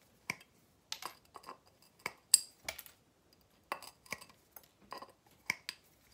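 Pliers and a short length of wire clinking and scraping against a glazed ceramic bonsai pot while the wire anchoring the drainage mesh is bent over under the pot. The sound is a string of short, irregular clinks and taps, the sharpest a little past two seconds in.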